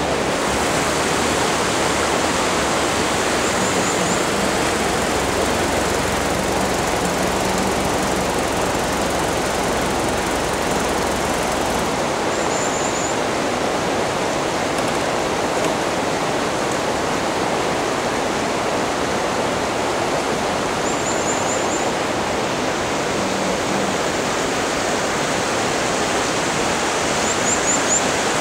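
A steady, even rushing noise, with a brief high chirping trill four times, roughly every eight seconds.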